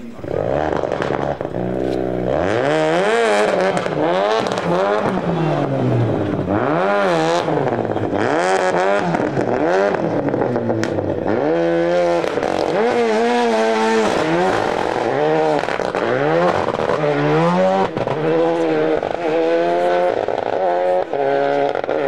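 Rally car engine revving up and falling back again and again as the car, stuck nose-first in a roadside ditch, works to drive itself free.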